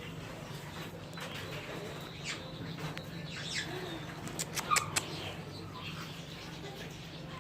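Caged parrots giving short, scattered chirps and squawks, with a cluster of sharp calls around the middle, over a steady low hum.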